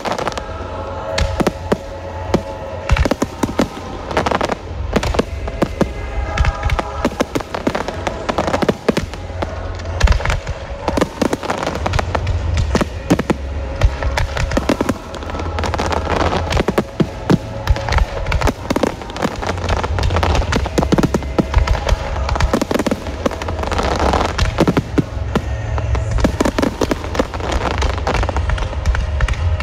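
Fireworks display: a dense run of shell bursts and crackling, heaviest about ten seconds in and again in clusters later, over loud music with a heavy bass.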